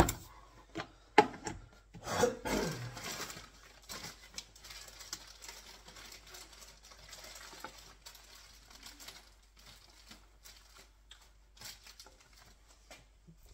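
Handling noises on a laminated cupboard door: a few sharp knocks in the first three seconds, the loudest a little over a second in, then faint rubbing and light taps.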